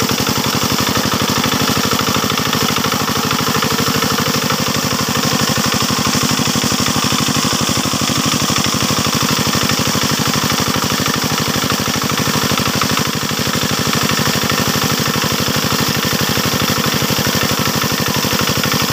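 Small single-cylinder diesel engine running steadily under load, driving a water pump, with the rush of water gushing out of the pump's discharge pipe over it.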